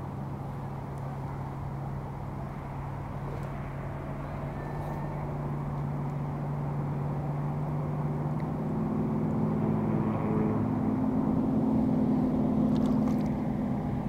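Steady low engine hum of a passing motor vehicle, growing louder over the second half and easing off near the end.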